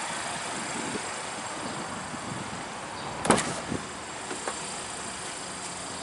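Steady vehicle hum, with a sharp click a little over three seconds in and a lighter knock just after it: the driver's door latch of a Buick Cascada being released and the door swung open.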